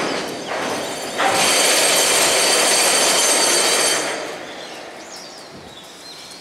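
Empty Taki 1000 tank wagons rolling past on the rails. From about a second in, a loud, steady, high-pitched wheel squeal rings for some three seconds as the wagons take the turnout into the siding. It then dies away to a quieter rolling of wheels.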